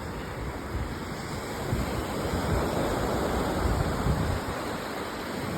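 Surf from a rough sea breaking and washing on the beach: a steady rushing wash that swells in the middle.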